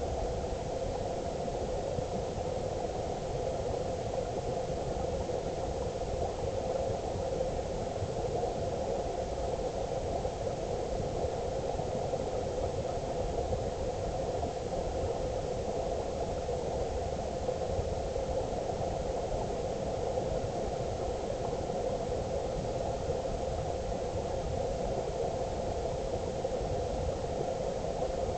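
Steady, muffled underwater noise of the river, picked up by a GoPro in its waterproof housing lying on the riverbed.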